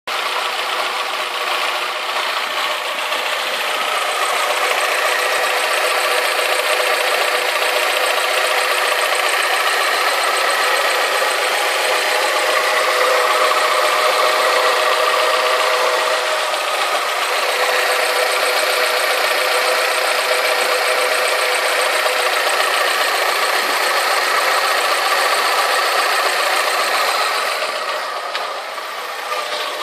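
Alfa Romeo 156 2.0 Twin Spark four-cylinder engine idling steadily, with a light 'pinking' noise still present after a new exhaust manifold and metal manifold gasket were fitted.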